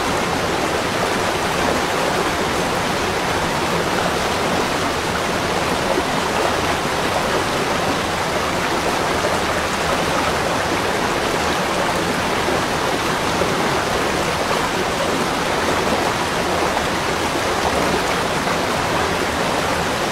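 Steady rushing of running water, like a waterfall or stream, an even hiss with no changes.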